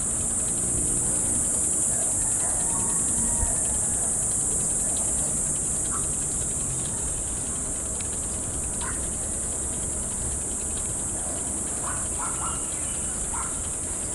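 Steady wind and rolling noise on a chest-mounted action camera while cycling, under a constant high-pitched hiss. A few short chirps come about six and nine seconds in and several more near the end.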